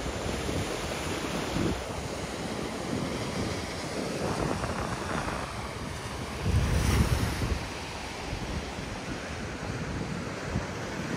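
Sea waves washing onto the shore, with wind buffeting the microphone in low rumbles. One louder wave breaks about seven seconds in.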